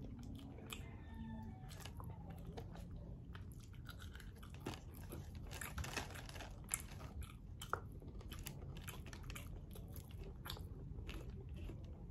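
Faint close-up chewing and crunching of KFC fried chicken, with scattered small clicks.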